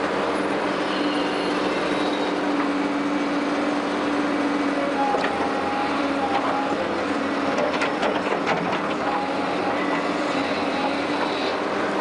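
Excavator's diesel engine and hydraulics running steadily with a constant hum, while the bucket teeth scrape through the clay slope, giving a scatter of clicks and scrapes midway.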